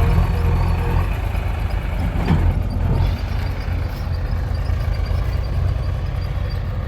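Heavy diesel engines of a backhoe loader and tractors running steadily with a deep rumble, and a brief whine that dips and rises in pitch about two seconds in.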